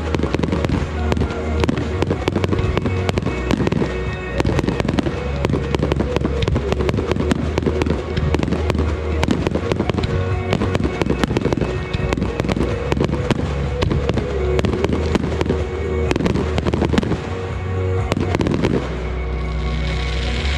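Fireworks display: a rapid, dense barrage of bangs and crackles over music, the bangs stopping near the end while the music carries on.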